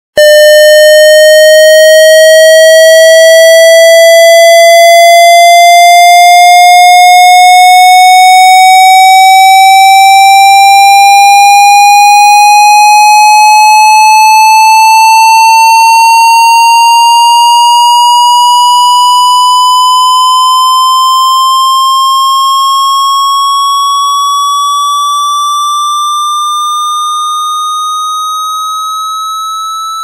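Cartoon sound effect of balloons rising high into the air: one long tone with a slight warble, gliding slowly and evenly upward in pitch and fading near the end.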